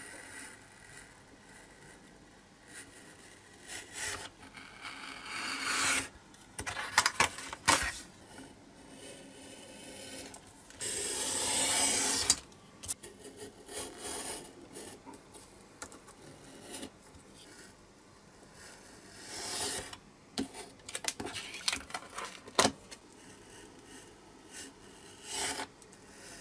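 Utility knife cutting through printed card: a series of scratchy cutting strokes, the longest about eleven seconds in, with a few sharp clicks between them.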